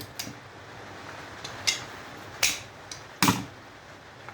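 Sharp clicks and knocks of a tool on the metal parts of an old breaker while a plug is being worked off it: three strikes about a second apart, the last one heavier.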